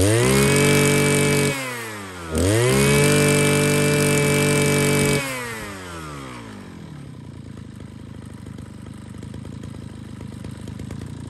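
Mitsubishi TL33 33 cc two-stroke brush cutter engine revved up hard twice, each rev held briefly before the pitch falls back. It then settles into a quieter steady idle.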